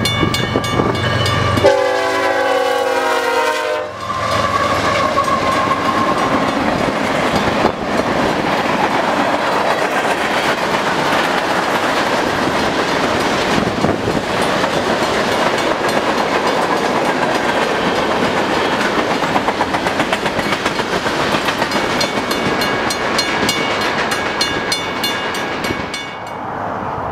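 Union Pacific freight train's horn sounds for about two seconds shortly after the start. Then a long freight of covered hopper cars rolls past with steady wheel-on-rail noise and clickety-clack over the rail joints. A grade-crossing bell rings at the start and again near the end.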